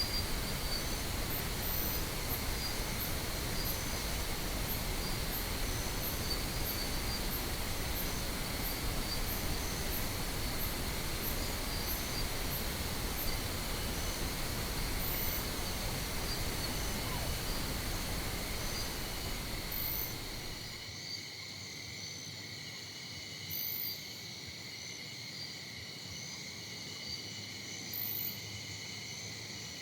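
Pink noise hissing steadily, then cutting off sharply about two-thirds of the way through. Under it, a steady high chirring of insects runs throughout, with faint regular high ticks in the first half and a few short high chirps near the end.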